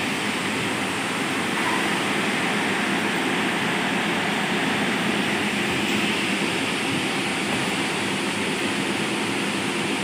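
Steady running noise of an ACE Hydra mobile crane's diesel engine, even in level throughout, with a faint low hum.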